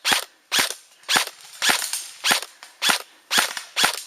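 Airsoft gun firing a steady series of single shots, eight sharp cracks at about two a second.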